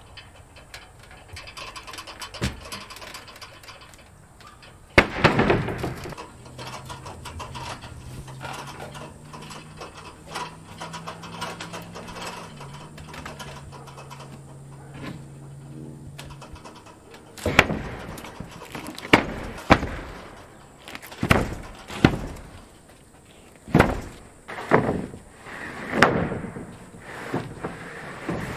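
Nails being driven into OSB roof sheathing on wooden rafters: a heavy thump about five seconds in, a steady low hum through the middle, then about eight sharp strikes roughly a second apart, each ringing briefly through the roof deck.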